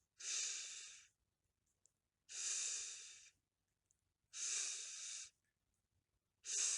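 A man's voice making the letter F's sound, a drawn-out voiceless 'fff' hiss, four times, each about a second long and about two seconds apart.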